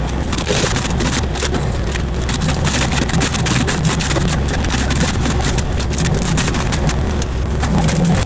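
Excavator-mounted hydraulic forestry mulcher running against a diesel engine under load, its spinning drum shredding briars and brush with constant crackling and snapping of wood.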